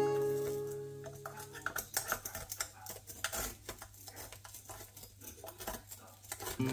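Metal kitchen tongs clicking and tapping against an electric heart-shaped waffle iron's plates as waffles are lifted out: irregular light clicks. Background guitar music fades out about a second in and comes back near the end.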